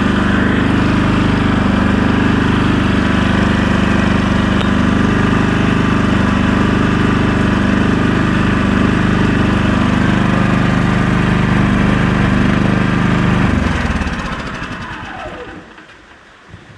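Champion 5500-watt dual fuel inverter generator running on propane, a steady engine drone. About 13 seconds in the engine is shut off and its sound dies away over a couple of seconds.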